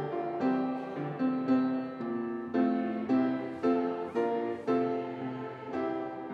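Piano playing a slow melody, a new note or chord about every half second.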